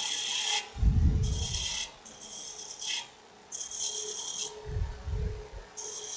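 Roughing spindle gouge cutting dry aspen turning on a wood lathe: a series of short hissing cuts, each under a second, as the tool takes down high spots on a goblet's cup. Two brief low rumbles come in, about a second in and about five seconds in.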